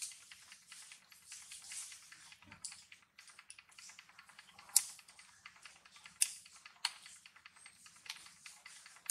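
Dry leaves crackling and clicking irregularly as the monkeys shift on the leaf litter, with a few sharper ticks past the middle.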